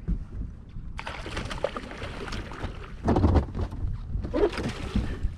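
Water splashing and sloshing at the boat's side as a big hooked smallmouth bass is played to the net. The splashing starts about a second in and is loudest around three seconds in, over a low wind rumble on the microphone.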